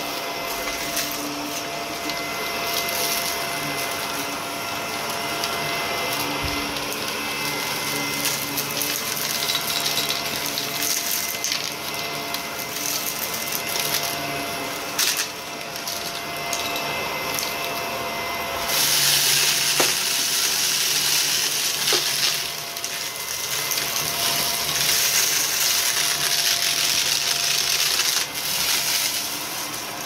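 Upright vacuum cleaner running over carpet with a steady motor whine, crackling and clicking as it sucks up scattered debris. A bit past halfway it gets louder, with a stronger rushing hiss.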